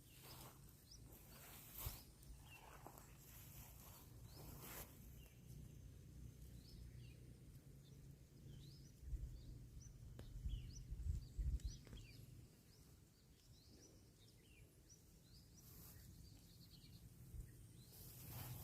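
Faint, repeated short bird chirps over a low rumble that swells for a few seconds around the middle, with a few soft knocks.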